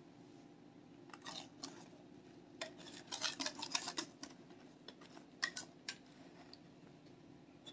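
A utensil scraping thick cake batter out of a glass mixing bowl, with scattered light scrapes and clinks against the glass, busiest about three to four seconds in.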